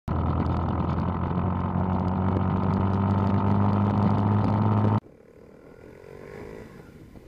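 125cc mini trail bike engine running at a steady pitch while cruising, with rushing air noise. It cuts off abruptly about five seconds in, leaving faint wind.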